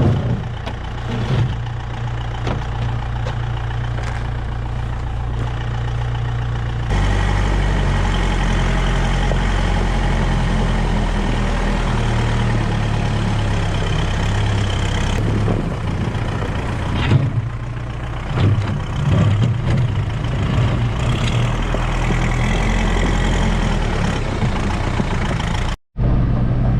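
Vehicle engine running steadily, its note stepping up louder about seven seconds in, with a few knocks and clunks in the second half.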